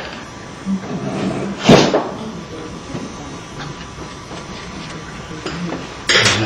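Painting knife working oil paint on a plastic palette, with soft scrapes and clicks. One loud knock just under two seconds in, and a rougher scrape near the end.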